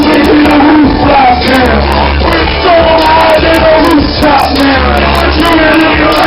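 Loud hip-hop music from a nightclub sound system, with deep bass notes coming and going and vocals over the top.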